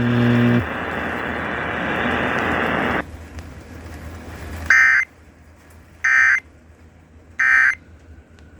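Emergency Alert System end-of-message data tones: three short, identical warbling digital bursts about 1.3 seconds apart, signalling the end of the tornado warning broadcast. Before them, a low hum stops about half a second in and a steady hiss runs until about three seconds in.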